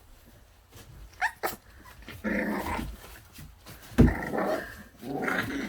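Five-week-old bully-breed puppies growling as they tussle over toys, with a couple of short high yelps about a second in and a thump about four seconds in.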